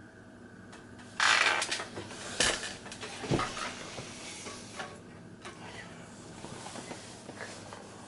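Handling noise: a loud rustle about a second in, then several sharp knocks and light clattering of hard objects being moved about, thinning out after a few seconds.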